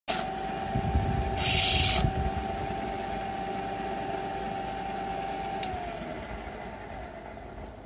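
Motorised lapidary flat lap running with a steady whine. About one and a half seconds in, a quahog shell is pressed briefly against the spinning abrasive disc with a loud grinding hiss. Near the end a click comes and the motor's whine falls in pitch as it winds down.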